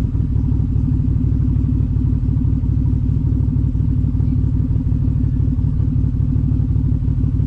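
Off-road vehicle engine running steadily at low revs close by, a dense even pulsing rumble.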